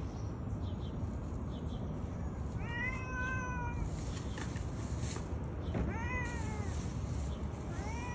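Stray cat meowing three times, first one long meow, then two shorter ones, calling to be fed, over steady low background noise.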